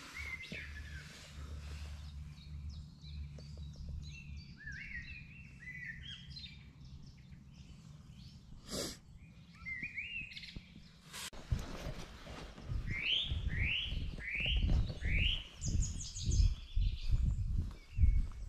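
Several woodland songbirds singing and chirping, with a run of four quick swooping whistles about two-thirds of the way in. From about halfway on, loud irregular low thumps and rumble on the microphone sound over the birdsong.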